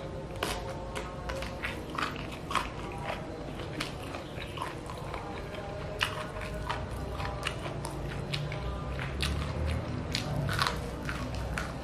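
Close-up biting and chewing of chilli-coated chicken feet, eaten by hand: irregular sharp clicks and crunches, a few a second, from the mouth working on skin and small bones.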